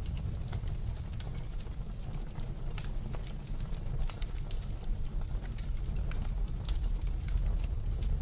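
Wood fire crackling in a fireplace, with scattered sharp pops, over a steady low rumble of blizzard wind.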